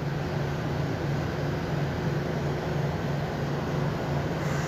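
A generator running with a steady low hum and a slight, even throb.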